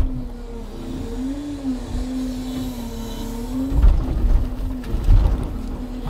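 Timber truck's engine running with a whining tone whose pitch drifts up and down, typical of the loader crane's hydraulics working under changing load. Two heavy low thuds come about four and five seconds in.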